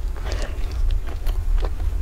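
Close-miked chewing of crunchy food: a crunch about half a second in, then a few sharp crackles, over a steady low rumble.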